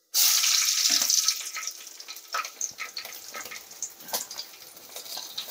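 Green chilli dropped into hot oil with whole spices in a kadai, sizzling loudly at once, then settling into a quieter sizzle with scattered crackles and pops.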